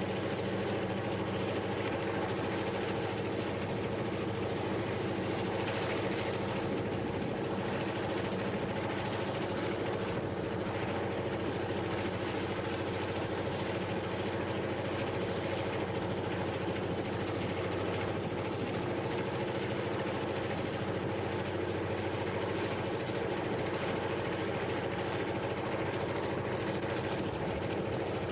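EMD GP-series diesel locomotive's two-stroke engine running steadily at full throttle (notch 8) while working as a helper, with a constant deep drone and hum.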